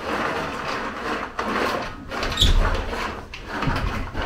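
Cocoa beans rustling and rattling as hands stir and spread them in a large metal basin, with a low thump about halfway through.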